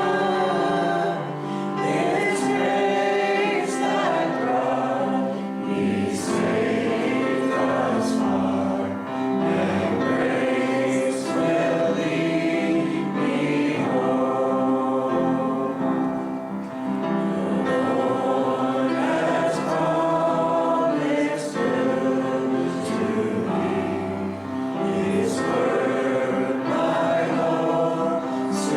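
Church singing: a group of voices sings a gospel hymn over instrumental accompaniment, with held notes.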